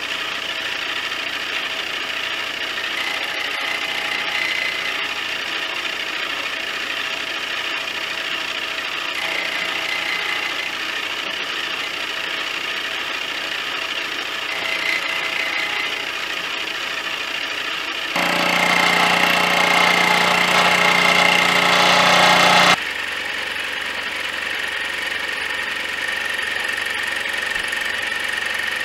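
Mini lathe running under power, turning a metal bar with a steady motor and gear whine and the sound of the cut. For about five seconds past the middle it is louder, with a stronger whine.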